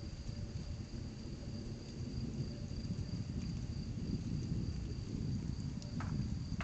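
A low, fluctuating rumble from the thunderstorm, with crickets trilling steadily at a high pitch over it. A couple of short clicks come near the end.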